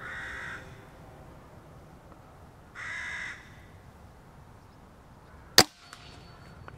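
A crow cawing twice, each call about half a second long and about three seconds apart. About five and a half seconds in comes a single sharp crack, the loudest sound: a Weihrauch HW97K spring-piston air rifle in .177 firing at the crow.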